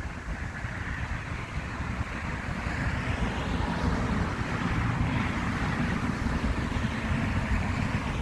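Road traffic noise: a vehicle passing, its sound swelling and then fading about halfway through, over a low rumble.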